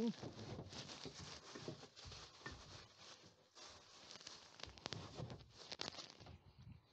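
Faint rustling, scraping and irregular light knocks as gear is pushed into the nose of a velomobile's hull: a bicycle floor pump wrapped in painter's fleece being packed in.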